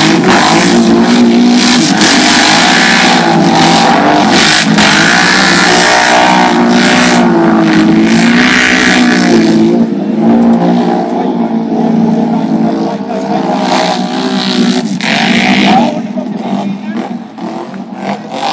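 Quad bike (ATV) engines revving hard and unevenly, the pitch rising and falling as a quad ploughs through deep mud. The sound is loud and distorted, and it drops off about 16 seconds in.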